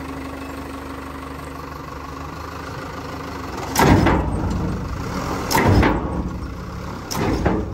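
Diesel engine of a backhoe loader idling steadily, broken about halfway through by three loud, short bursts of noise roughly a second and a half apart.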